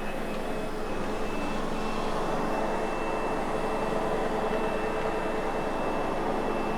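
Sebo X8 upright vacuum running steadily over carpet: an even motor whir with a constant high, thin whine.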